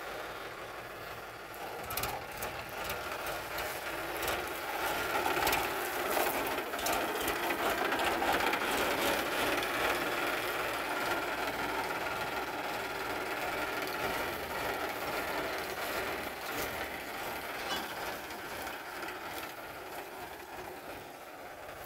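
Powertrac 439 Plus tractor's three-cylinder diesel engine running under load while it pulls a tine cultivator through soil, with a steady mechanical clatter and rattling. It grows louder a few seconds in and eases off again near the end.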